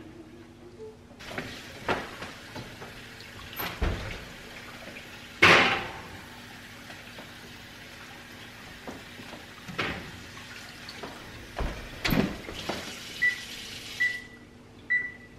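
Running tap water with several metal clunks of loaf pans and the oven door, the loudest about five seconds in. Near the end come three or four short beeps from the range's electronic oven control panel as its buttons are pressed to set the oven.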